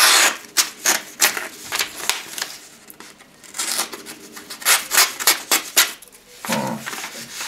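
Extrema Ratio Task C knife's black-coated, partly serrated blade working through a sheet of paper in a run of short, uneven rasping and tearing strokes, the paper ripping rather than being cut cleanly: the edge is not very sharp.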